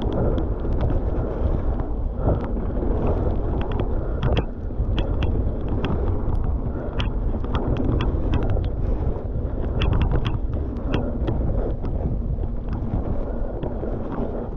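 Mountain bike riding fast down a dirt trail: a steady rumble of tyres and wind buffeting the microphone, with frequent sharp clicks and rattles as the bike hits bumps.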